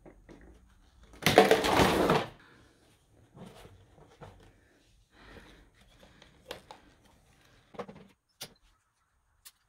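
A stack of plastic PVC stepping-stone tiles clattering and sliding apart on concrete for about a second, after their binding strap is cut. Scattered sharp clicks and knocks follow as the tiles and their plastic inserts are handled and snipped with shears.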